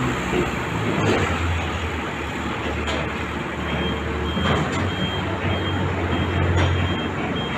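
Traffic noise: a heavy vehicle's engine running with a low, steady hum, and a faint high beep repeating from about four seconds in.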